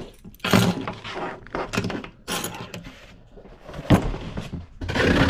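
A package being torn open and its packaging handled: several short ripping and rustling noises, with a sharp knock about four seconds in.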